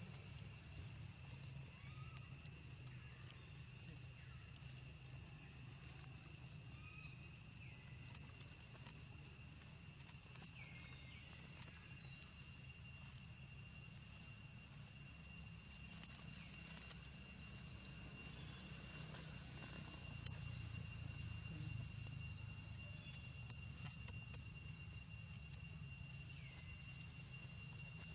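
Faint outdoor ambience: a steady low rumble under two steady high-pitched tones, with scattered faint short chirps throughout.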